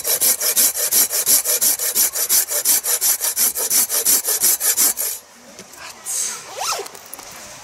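Hand pruning saw cutting through a log of wood, quick even strokes at about four a second, stopping about five seconds in.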